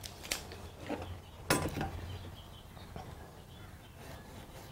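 Small hand tools, a tape measure and a steel combination square, handled and set on a wooden board: a few light clicks and knocks in the first two seconds, the loudest about a second and a half in, then only faint room noise.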